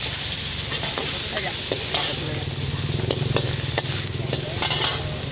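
Prawns sizzling in hot oil in a wok, with a metal spatula ticking and scraping against the wok as they are stirred, over a steady low hum.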